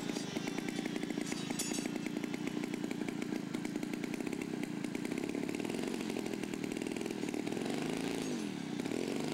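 Quadra 75cc two-stroke gasoline engine of a giant-scale radio-control Bf 109-E model running steadily just after being started. Its speed dips and comes back up near the end.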